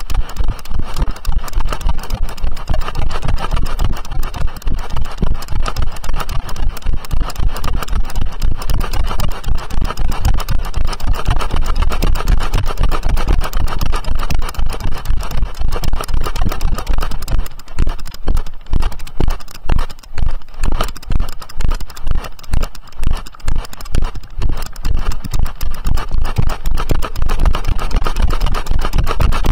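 Loud rumbling, buffeting noise on a camera carried by a rider on horseback, pulsing in time with the horse's stride.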